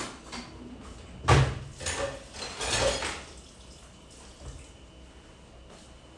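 Kitchen utensils knocking and clattering at the sink as a knife is picked out, the loudest knock about a second in and smaller ones near two and three seconds, with a brief splash of running water around the last of them.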